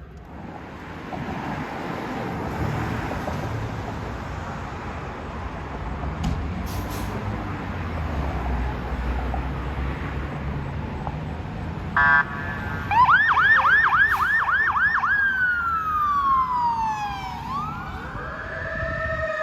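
Fire apparatus engine rumble for about twelve seconds, then a short horn blast and an emergency siren that starts: a rapid yelp of about four sweeps a second, then a long falling sweep, rising again near the end.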